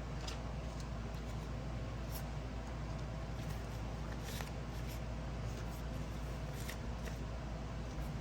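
Paper banknotes being handled and sorted by hand, with light, scattered rustles and flicks over a steady low hum.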